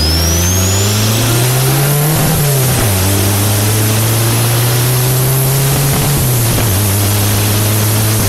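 Turbocharged Nissan 240SX (S14) four-cylinder accelerating on the road, engine note climbing with a rising turbo whistle in the first second. The revs drop sharply at a gear shift a little over two seconds in, then climb again more slowly and hold, over steady wind and tyre noise.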